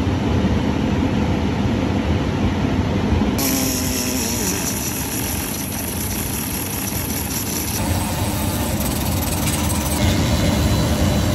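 Pneumatic right-angle die grinder running with a small abrasive disc against a cast aluminium engine cover, grinding out deep scratches. Steady running, with much more hiss from about three seconds in.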